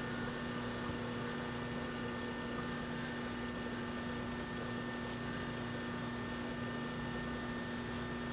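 Steady electrical hum over faint background hiss, unchanging throughout, with no distinct handling sounds.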